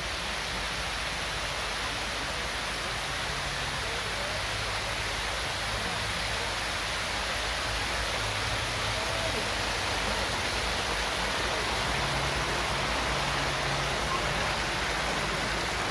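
Shallow river water pouring over a low sloping weir, heard close up as a steady, dense rushing.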